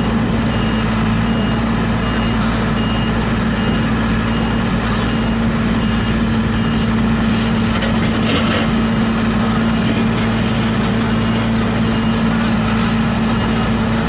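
Diesel engine of a HAMAC TS-series tracked skid steer loader running steadily, with a high beep repeating about two and a half times a second.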